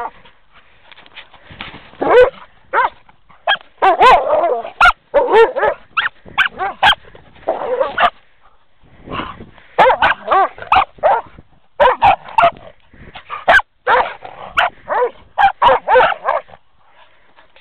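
An Airedale terrier and a Border collie mix play-fighting, with rapid runs of short barks and yips and a short pause about halfway through.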